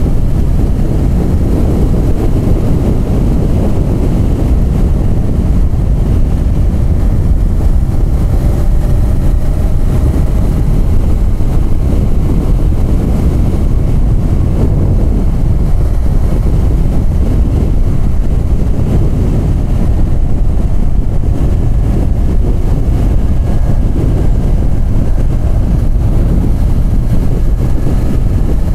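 Motorcycle riding at speed on a mountain road: the engine runs steadily under a loud, low rush of wind on the rider's microphone.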